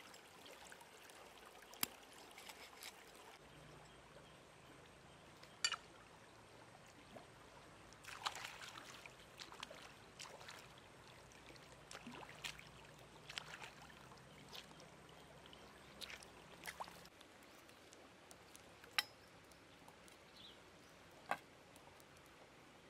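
Shallow stream water trickling faintly over stones, with light splashes and scattered sharp clicks as hands and a knife work in the water.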